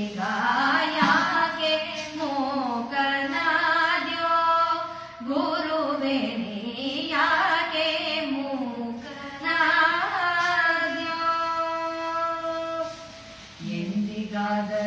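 A woman singing a Kannada devotional song in Carnatic style, in long melodic phrases with short pauses for breath. Near the end a lower, steadier vocal line comes in.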